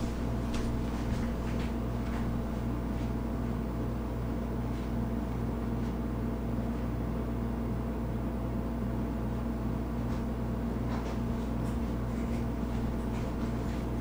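Steady low mechanical hum of room tone, with a faint regular pulsing in it and a few faint ticks near the end.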